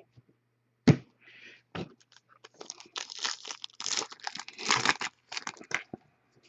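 A foil trading-card pack wrapper being torn open and crinkled by hand, with a sharp knock about a second in. Dense crackling runs through most of the second half.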